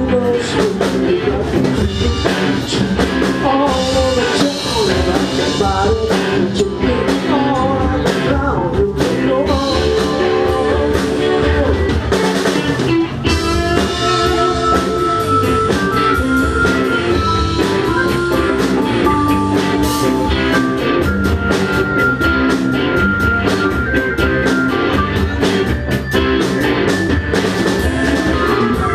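Live rock band playing: electric guitars, bass, drum kit and keyboards, with a steady beat. A lead line bends in pitch through the first half, then long held high notes ring over the band in the second half.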